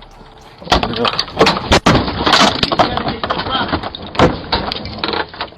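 Sudden loud commotion at a front door starting about a second in: a rapid run of bangs and crashes with shouting mixed in, picked up by a doorbell camera's microphone.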